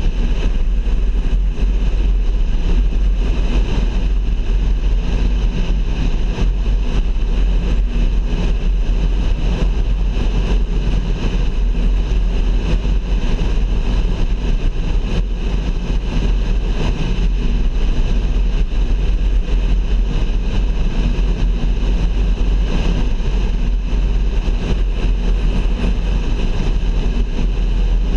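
Steady noise of a car driving at road speed: engine and tyre noise with a heavy, constant low rumble and no change throughout.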